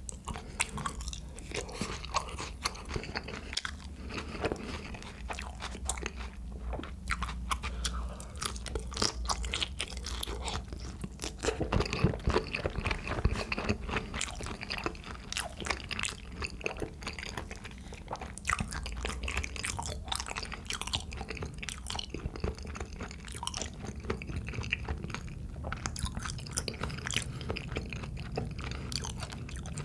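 Close-miked chewing of soy-sauce marinated raw shrimp (ganjang saeujang) and rice: a steady run of wet, sharp mouth clicks and crunches, loudest about twelve seconds in.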